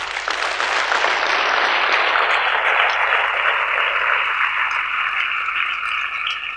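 Audience applauding, strongest at first and thinning out toward the end.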